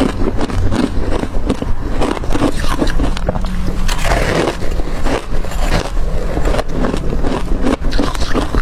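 Hard crushed ice being bitten and chewed close to the microphone: a dense, continuous run of loud crunches and cracks.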